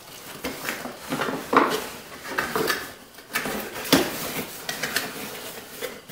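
A small cardboard product box being handled and set down in a larger cardboard carton: scattered knocks, taps and rustles, the sharpest about one and a half and four seconds in.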